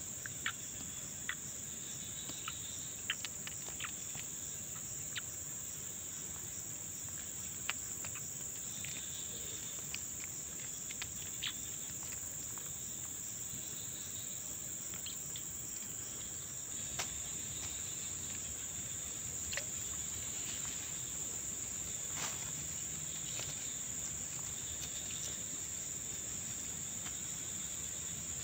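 Steady high-pitched chorus of insects trilling, with a weaker on-and-off trill lower down. Scattered short clicks and taps, mostly in the first half.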